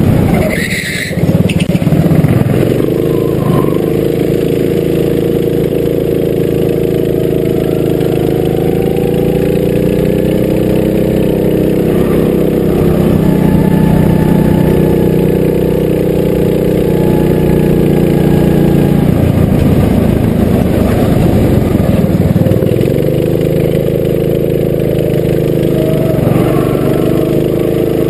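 Go-kart engine heard on board while lapping. Its revs climb on the straights and drop back into the corners, several times over.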